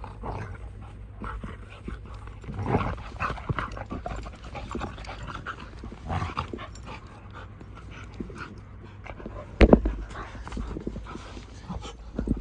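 Dogs panting while they play and scuffle through dry crop stubble, with rustling and scattered short knocks; one sharp knock about ten seconds in is the loudest sound.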